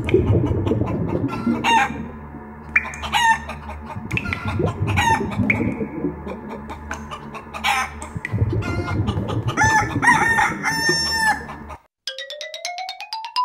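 Chickens clucking and a rooster crowing over a low steady hum. About twelve seconds in the sound cuts off suddenly and a single rising tone begins.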